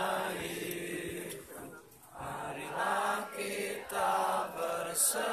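A group of people's voices in unison, chanting in drawn-out phrases held on steady pitches, with short breaks between phrases.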